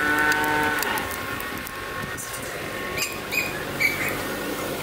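A steady horn-like tone for under a second at the start, then a run of short high chirps about two a second near the end, over a light crackle of oil frying.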